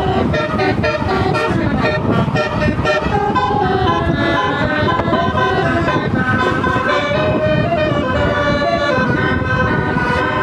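A tour bus's Basuri 'telolet' musical horn playing a tune, several horn tones stepping from note to note, over a low rumble.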